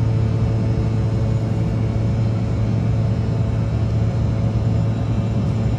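Steady drone of a jet airliner's engines and rushing air heard inside the cabin as it climbs out after takeoff: a deep, even hum with a few faint steady tones above it.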